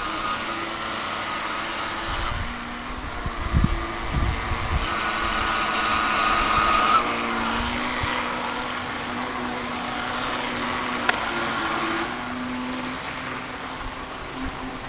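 Electric motor of a 9.6-volt RC toy boat whining steadily as the boat runs in tight circles on the water, its pitch shifting about halfway through. A few low rumbling bumps come in the first few seconds, and there is a single sharp click later on.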